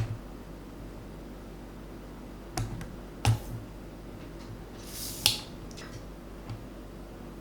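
Spring-loaded desoldering pump working on a keyboard switch's solder joints: a few sharp clicks and snaps, the loudest about three and five seconds in, the second just after a short hiss of air, as molten solder is sucked off the pins.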